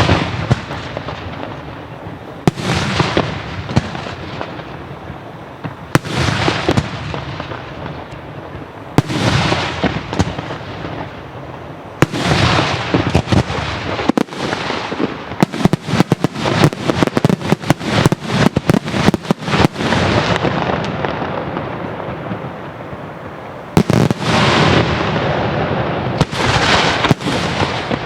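Italian daytime fireworks display (diurno): loud aerial bangs about every three seconds, each trailing off in a long echo. Around the middle comes a rapid run of many reports lasting several seconds, and then single heavy bangs resume near the end.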